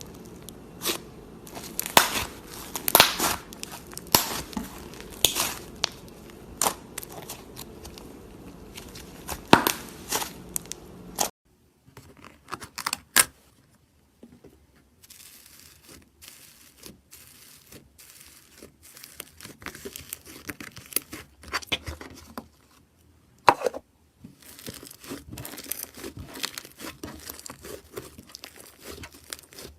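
Slime being handled, crackling and popping with sharp snaps like tearing. It changes abruptly to a quieter stretch with scattered pops about a third of the way in.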